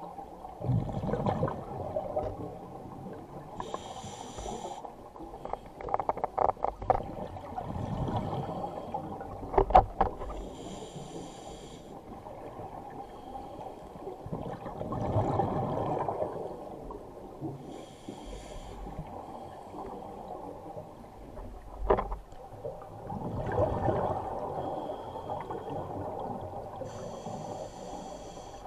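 Scuba diver breathing through a regulator, heard underwater: a short hiss of inhalation about every seven seconds alternates with a low rush of exhaled bubbles. A few sharp clicks sound, a cluster around a quarter of the way in and a single loud one about three-quarters in.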